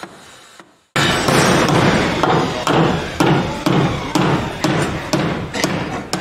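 Hammering from construction work: steady, evenly spaced blows at about two a second. They start suddenly about a second in.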